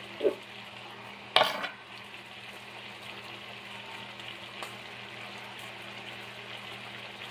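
Marinated mushrooms sizzling steadily in olive oil in a frying pan, with one sharp clack about a second and a half in.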